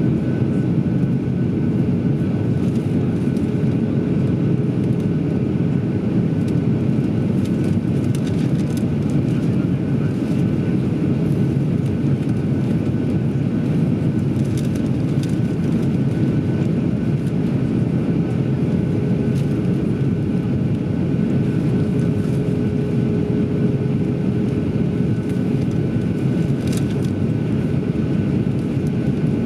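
Steady cabin noise inside a Boeing 737-800 on its descent: the rush of air and the drone of its CFM56-7B turbofan engines, heard from a seat by the wing, with a faint steady tone running through it.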